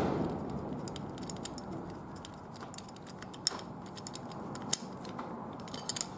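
Small tools handled on the steel parts of a wheel-lock mechanism: a few scattered sharp metal clicks and taps over a low hiss, the clearest about three and a half and nearly five seconds in.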